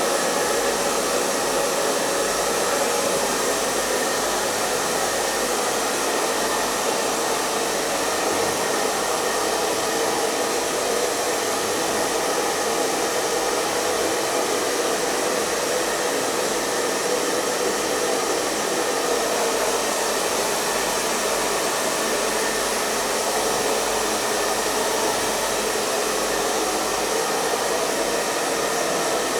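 Hair dryer blowing steadily: an even, unbroken rush of air and motor hum at a constant speed.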